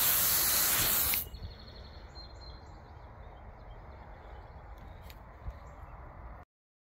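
Water spraying from a garden hose spray nozzle onto wet wood boards and asphalt, a loud steady hiss that stops suddenly about a second in. After that there is only a low outdoor background with a few faint chirps, and the sound cuts off near the end.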